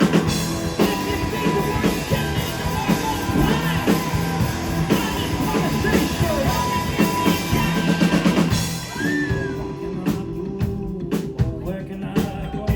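Indie rock band playing live, with drums, guitars and bass. About eight and a half seconds in, the full band drops to a sparser passage: the bright top end falls away, leaving a held low note and a few separate drum hits.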